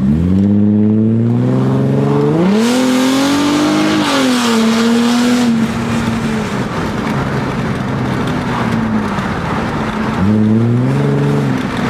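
Mercedes W210 engine and exhaust under hard acceleration, the pitch climbing and stepping up, then settling to a steady cruising note. A second short burst of throttle comes near the end.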